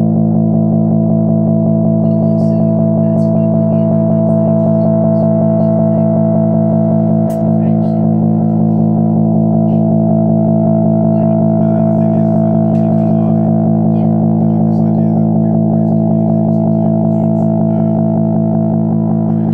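Music: a loud, steady droning chord held throughout, with faint scattered ticks above it and a brief dip about seven seconds in.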